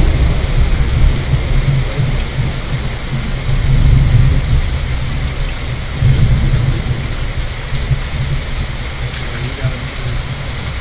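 Steady rain falling in a thunderstorm, under a low rumble that swells and fades several times. The rumble is heaviest at the start and again around four and six seconds in, and dies down toward the end.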